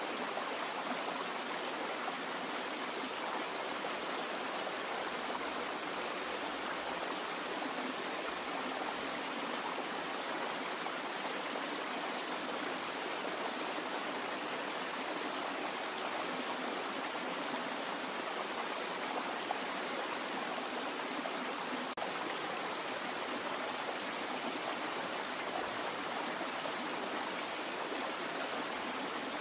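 Flowing water rushing steadily, like a stream or small cascade, with no change over the whole stretch.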